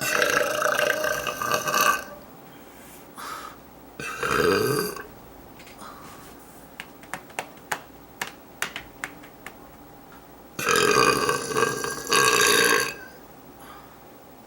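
A woman burping deliberately: a long burp at the start, a shorter one about four seconds in that falls in pitch, and a long burp in two parts near the end. Between them comes a run of short sharp clicks.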